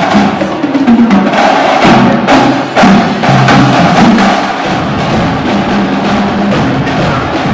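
Loud music with a steady percussion beat over pitched instruments.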